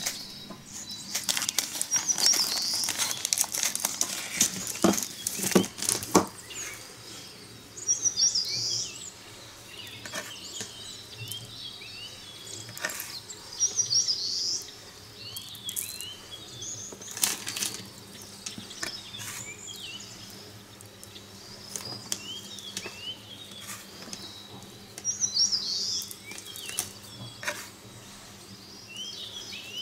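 Small birds chirping in quick, high bursts several times over. In the first few seconds there are sharp clicks and rustling as a plastic bag of model-tree foliage is cut open with scissors and handled.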